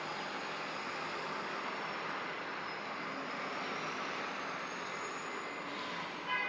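City buses running and moving about a bus lot: a steady engine-and-traffic din with a faint high whine that rises through the middle. About six seconds in comes a brief high-pitched squeal.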